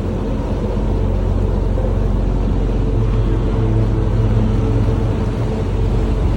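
Tour boat's engine running steadily, a constant low hum with water and wind noise around it.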